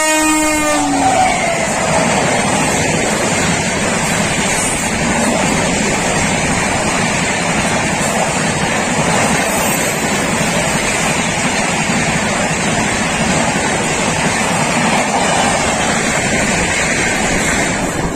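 Indian high-speed train passing close at speed: the end of its horn blast drops in pitch in the first second, then a loud, steady rushing roar of the train going by.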